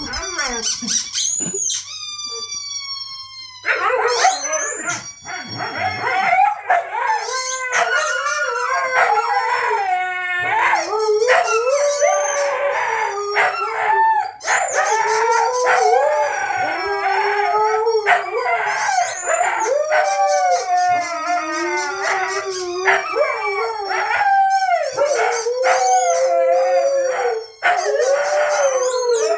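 Two Siberian huskies howling together in long, wavering, overlapping howls, set off by a squeaky toy that squeaks now and then between them.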